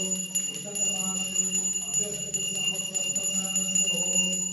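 Continuous bell-like ringing, several sustained high tones held steady, with a faint wavering melody beneath.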